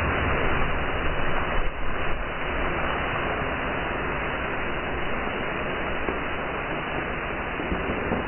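Carbonated drink jetting under pressure from a BB hole in a 2-litre plastic bottle: a steady, loud hiss of escaping gas and spray.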